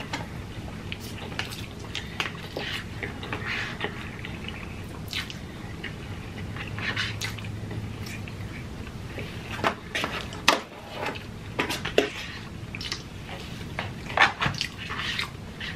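Close-miked eating sounds: wet chewing and slurping of pasta, dotted with many short clicks from mouths and forks against plastic takeout containers. A cluster of louder clicks and knocks comes near the end as a container is handled.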